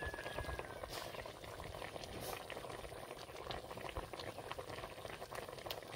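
Chicken boiling in its own juices and a little water in an uncovered clay karahi: a steady bubbling hiss with many small pops. It is being cooked open so the water boils off.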